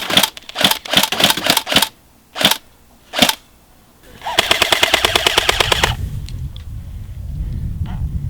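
Airsoft guns firing. First comes a quick string of single sharp snaps, then two spaced shots. About four seconds in, a rifle fires a full-auto burst lasting under two seconds, its rapid clatter carrying the whine of the electric gun's motor and gearbox.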